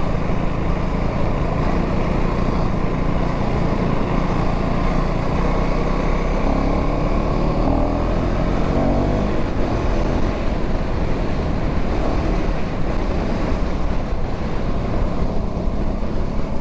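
Motorcycle riding along with wind rushing over the microphone and the engine running underneath; the engine's pitch climbs briefly about halfway through.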